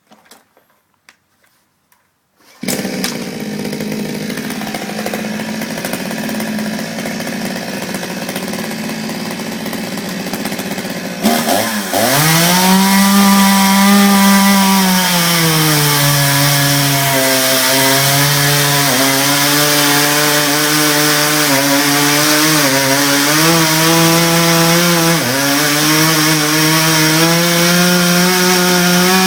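Gas chainsaw starts up and runs steadily for several seconds. About eleven seconds in the throttle opens to full speed, and the engine note sags and recovers repeatedly, as under load cutting wood.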